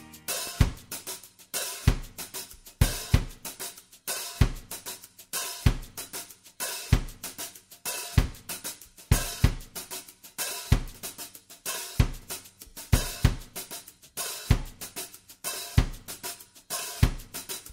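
Background music at a drum-only stretch: a drum kit playing a steady beat of kick drum, snare and hi-hat cymbals, with no other instruments.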